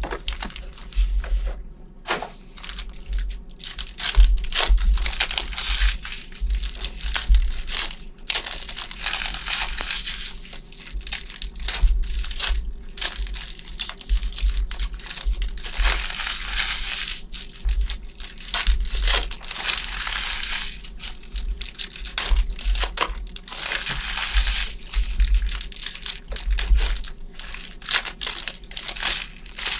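Plastic wrap and trading-card pack wrappers crinkling and tearing as they are opened by hand, in irregular bursts with small clicks.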